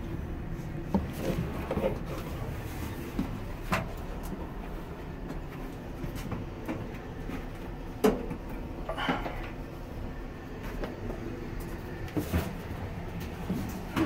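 Irregular knocks and clunks of hands working inside a clothes dryer's sheet-metal cabinet while the new drum belt is fitted around the drum and pulley, over a steady low rumble.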